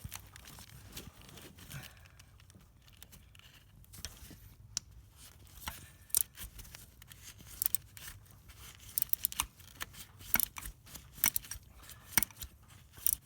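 Sharp metallic clicks and ticks from a hand wrench working a seized exhaust manifold bolt back and forth in a 5.3 Vortec cylinder head. They come sparsely at first, then in quick clusters from about six seconds in. The bolt is turning stiffly in the head rather than the weld breaking.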